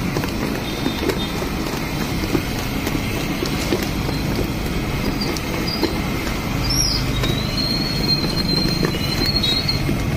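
A hand beating thick gram-flour batter in an aluminium pot with soft wet slaps, over a steady street-traffic rumble. About seven seconds in, a thin high squeal starts and holds for about two seconds.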